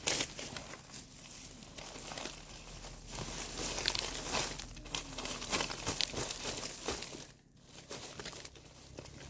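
Dry crackling and rustling, many small clicks close together, as of dry material being crumpled or handled. It is busiest in the middle and dips briefly near the end.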